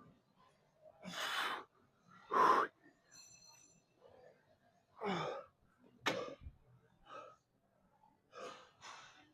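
A man breathing hard from exertion: a run of about seven sharp, breathy exhalations and gasps at irregular intervals.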